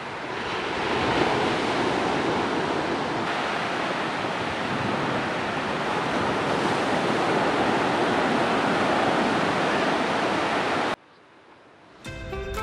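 Ocean surf breaking on a beach, a steady rushing wash with wind buffeting the microphone, cut off abruptly about eleven seconds in. Music starts near the end.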